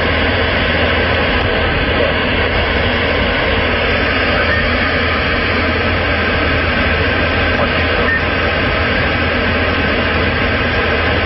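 Truck cab on the move: a steady rushing road and engine noise with a constant low drone, unchanging throughout.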